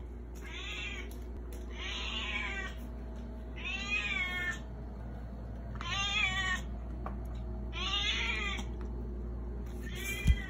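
A domestic cat meowing six times, about two seconds apart: insistent demand meows of a cat begging for food. A short thump comes near the end.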